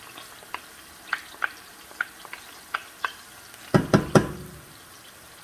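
Wooden spoon tapping and scraping diced peppers out of a container into a stainless skillet, over a light sizzle of onions and garlic sautéing in oil. A cluster of three louder knocks comes near the end as stirring begins.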